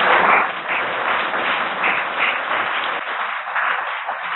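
Audience applauding: many hands clapping together in a dense, steady patter that eases slightly near the end.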